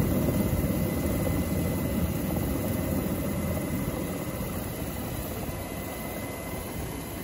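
UH-60 Black Hawk helicopter's main rotor and turbine engines running, heard from inside the cabin at the open door: a dense low rumble with rapid rotor flutter and a faint steady high whine, easing slightly in level.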